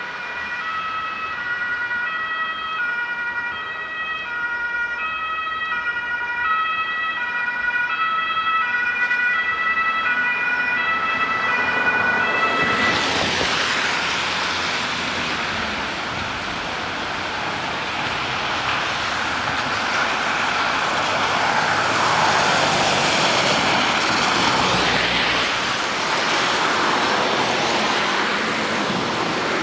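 German two-tone emergency siren (Martinshorn) on an approaching emergency doctor car, switching back and forth between two pitches. About 13 seconds in, the vehicle passes close and a loud rush of traffic on the wet, slushy road takes over.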